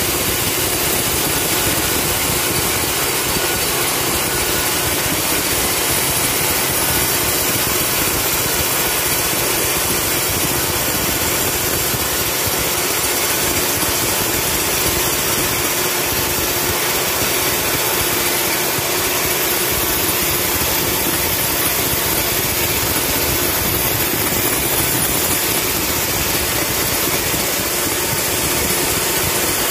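Horizontal band sawmill running and sawing through a long beam of dry hardwood: a steady, dense mechanical whine and hiss of the blade in the wood, with no change in level.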